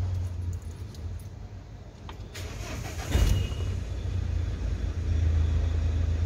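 Mahindra Xylo engine cranked with the key and catching about two and a half seconds in, then settling into a steady idle.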